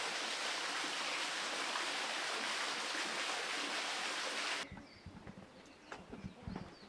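Steady rush of running, splashing water that cuts off abruptly about four and a half seconds in, leaving a quiet stretch with scattered light footsteps.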